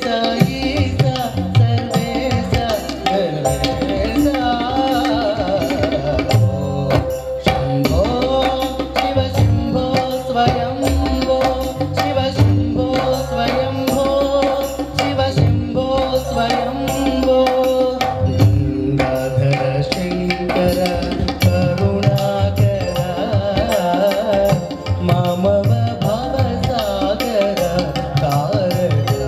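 A man singing a Carnatic-style devotional song in Revati raga, with wavering, ornamented melodic runs, over tabla strokes and sustained keyboard tones.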